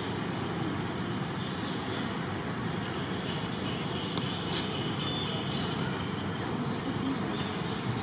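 Steady outdoor background noise, an even hiss and rumble, with a faint click about four seconds in.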